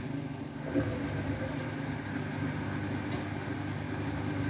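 Beko WTK104121W washing machine running during a rinse, its motor humming steadily as the drum turns the load.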